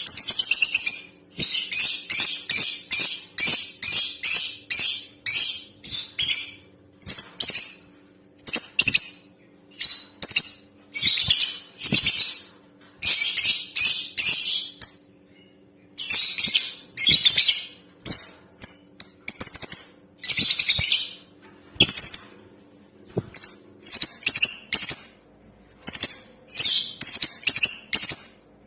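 Female lovebird chattering in shrill, rapid ticking bursts, each under a second to about a second and a half long, one after another with short gaps. It is the kind of female call played to provoke male lovebirds into singing.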